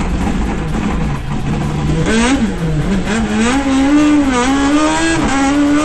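Toyota Starlet rally car's engine driven hard: the revs fall away about a second in, then climb sharply near two seconds in and stay high, with brief dips at gearchanges.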